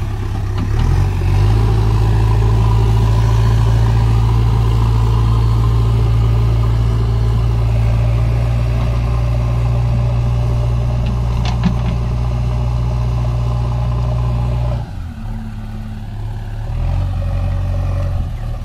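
Heavy diesel engine revved up about a second in and held at a high, steady speed, then dropping back sharply about fifteen seconds in and picking up again near the end.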